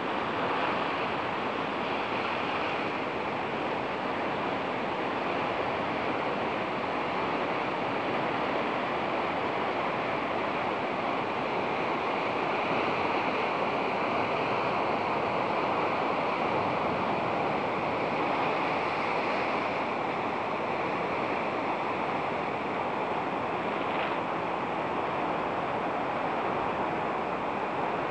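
Steady rushing wash of sea surf, an even noise with no breaks.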